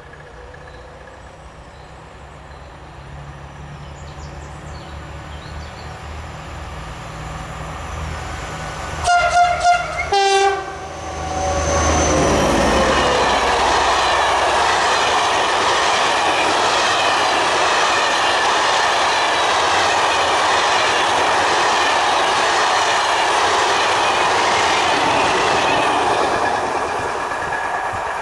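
Two SNCF BB 67400 diesel locomotives approaching with a rising engine rumble and sounding a few short two-tone horn blasts, then passing at speed with a train of passenger coaches: a long, loud rush of wheels on rail that eases off near the end.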